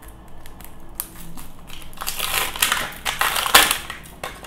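Crinkly plastic wrapping being peeled off an L.O.L. Surprise ball with the fingers, a dense crackling that starts about a second in, is loudest shortly before the end and then dies away. The wrap is sticking to the ball and tearing as it comes off.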